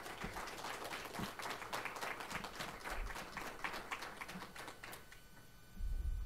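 Audience applauding, many hands clapping together, dying away about five seconds in. A brief low thump follows near the end.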